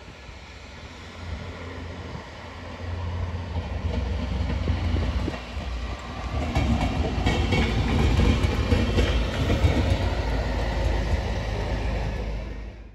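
Yellow self-propelled rail maintenance vehicle passing slowly. Its engine gives a low rumble that builds as it draws near, and its wheels click over the rail joints as it goes by.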